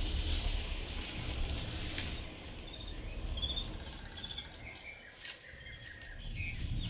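Recorded nature soundscape of birds chirping in short phrases over a low rumble, played back through a home-theater speaker system.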